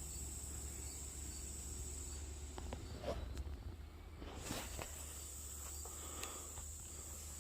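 Steady high-pitched chirring of crickets, fading out about two seconds in and coming back about four and a half seconds in, over a low rumble, with a few faint rustles in the middle.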